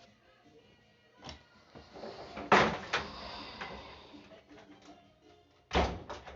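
A door being shut: a few knocks and one louder bang about two and a half seconds in, with a heavier thump near the end.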